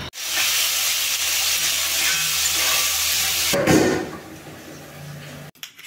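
A steady sizzling hiss that drops sharply about three and a half seconds in and fades out over the next two seconds.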